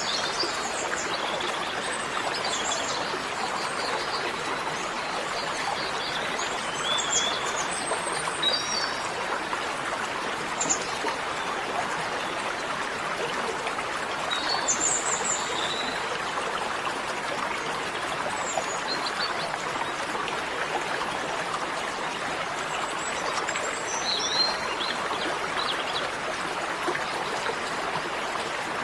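Steady rush of flowing water, like a stream, with birds chirping on and off above it.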